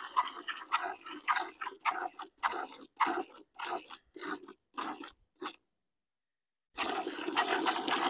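A water buffalo being milked by hand: squirts of milk hiss into a plastic bucket in a steady alternating rhythm, about two or three squirts a second. About five seconds in the sound drops out completely for about a second, then comes back as a steadier hiss.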